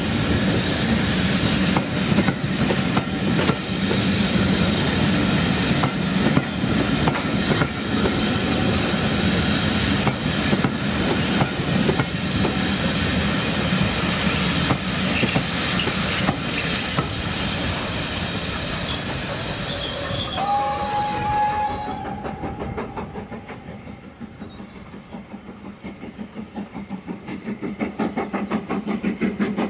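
Heritage railway passenger coaches rolling past close by: a steady rumble, with the wheels clicking over the rail joints. A brief single tone sounds just before the train noise dies away about 22 s in. After that a quieter, regular beat grows over the last few seconds.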